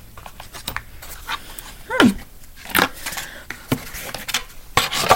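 An animal's short falling whine about two seconds in, among scattered clicks and rustles.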